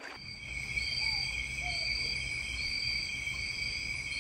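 A chorus of insects singing: several steady, shrill high tones, with one call repeating about once a second, over a low rumble.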